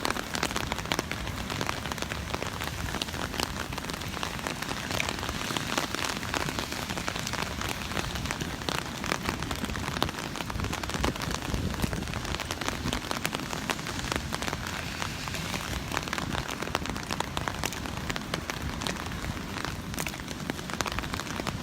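Steady rain falling, with many individual drops landing close by as sharp ticks.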